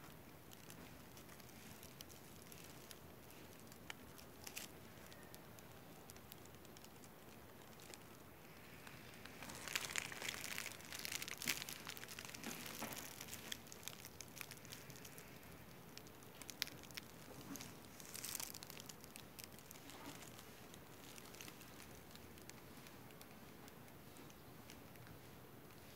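Faint steady outdoor hiss with scattered crackling rustles: a burst of them about ten seconds in and a shorter one later.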